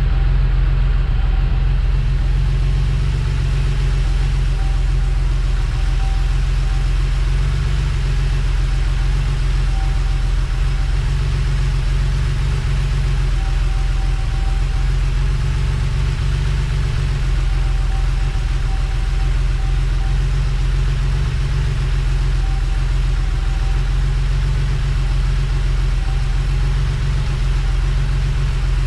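A motor running steadily with a constant low drone, a faint higher tone coming and going over it.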